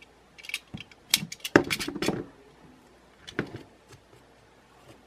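Plastic battery-pack cap and taped cell pack being handled: scattered clicks, taps and rustles, the loudest cluster about one and a half to two seconds in and another shorter one a little later.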